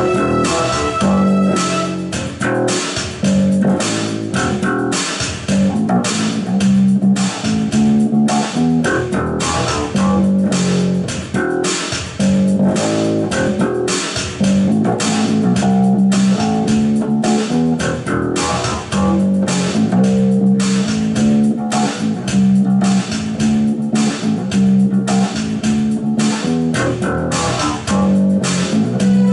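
Electric bass guitar playing a repeating riff within a song that has a steady beat.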